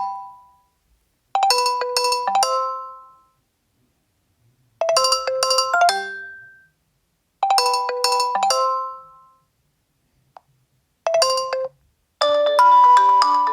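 Nokia 2.4 smartphone ringtones playing through the phone's speaker. Short, bell-like melodic phrases sound a few seconds apart, one is cut off short, and near the end a busier, different melody starts.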